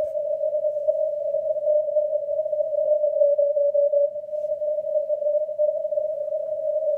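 Amateur radio receiver audio on the 160-metre band in CW mode, heard through a narrow filter: a steady hiss pitched around 600 Hz, wavering slightly in strength. This is band noise in the CW passband, with any weak Morse signal buried in it.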